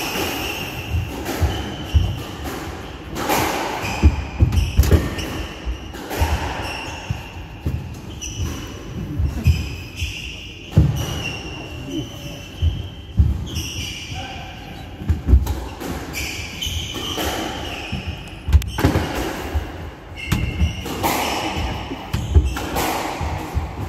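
Squash rally: the ball cracks off rackets and off the walls at an irregular pace, a few hits a second. Between the hits come short high shoe squeaks and footsteps on the wooden court floor.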